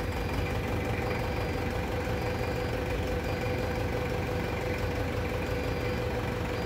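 Engine idling steadily, an even low rumble with a steady hum.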